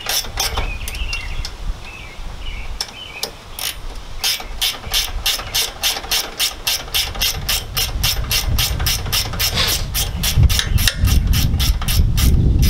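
Socket ratchet clicking as a nut is backed off a bolt held with an Allen key. A few scattered clicks come first, then a steady run of about four clicks a second from about four seconds in. A low rumble of handling noise builds near the end.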